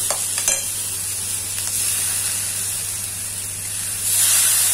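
Shredded cabbage, carrot and peas sizzling in a metal kadhai as they are stir-fried with a steel spatula. The spatula scrapes the pan a couple of times about half a second in, and the sizzle swells near the end.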